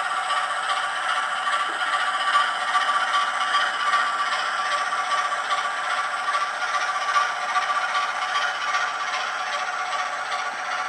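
Model railway locomotive running on the track: a steady rattling, scraping mechanical noise with a faint steady hum.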